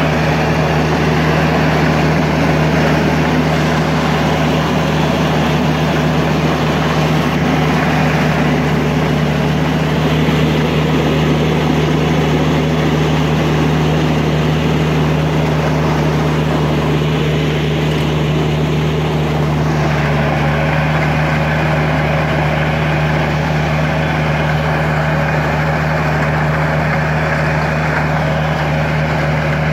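Gafner Duo manure spreader at work: its engine runs with a steady, even drone under the noisy clatter of the spreader flinging manure.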